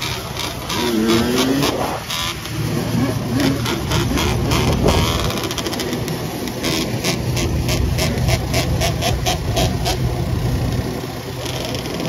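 Yamaha Blaster quad's two-stroke single-cylinder engine, bored out to 260cc, running hard and revving up and down while the quad is ridden in a wheelie.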